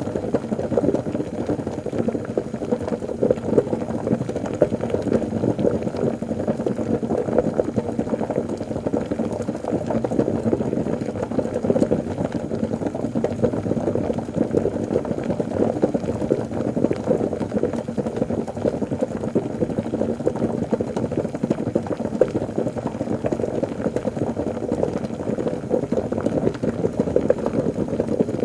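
Liquid bubbling continuously: a dense, unbroken stream of light bubble pops, mostly low in pitch and steady throughout.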